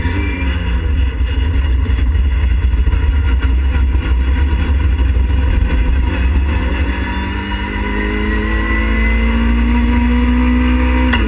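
A race car's engine heard from inside the cockpit at racing speed. For the first half the revs vary as the car slows and changes down. From about halfway it pulls hard in third gear, the pitch rising steadily at high revs, then drops sharply at an upshift right at the end.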